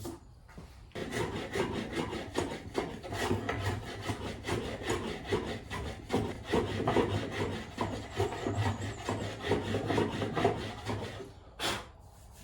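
Hand plane taking light shavings off the wooden sole of an antique jack plane to flatten a slight bow in the middle: a rapid run of rubbing, scraping strokes starting about a second in and stopping shortly before the end, followed by a single knock.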